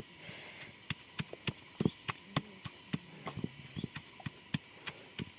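Knife chopping on a cutting board: a quick, uneven run of sharp knocks, about four a second, starting about a second in.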